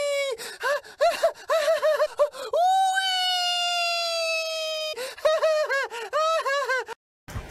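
Sea lion calling: runs of short rising-and-falling yelps, about four a second, around one long held cry that slides slowly down in pitch. It cuts off suddenly near the end.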